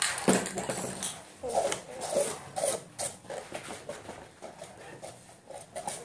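A metal spatula scraping and tapping in short strokes across a spray-painted board, scratching tree trunks into the wet paint.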